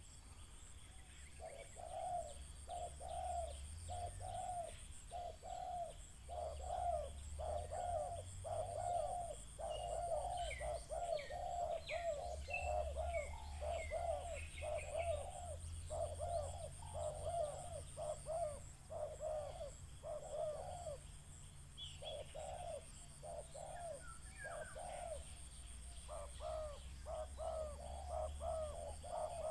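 Spotted dove (tekukur) cooing over and over in its rhythmic repeated phrases, with a short break about two-thirds in. This is a decoy dove calling to challenge wild doves. Small birds chirp higher up now and then.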